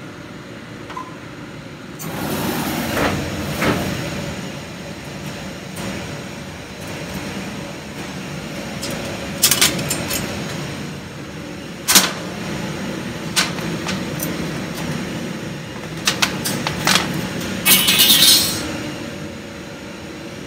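Thin stainless steel sheet and its clamps being handled on a laser cutter's steel slat bed: scattered sharp metallic clanks and knocks, with a brief scraping rattle near the end, over a steady background hum.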